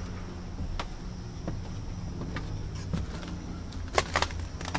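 Footsteps climbing weathered wooden outdoor stairs strewn with dry leaves: scattered knocks on the treads at an uneven pace, the loudest pair about four seconds in. A faint steady high tone and a low rumble run underneath.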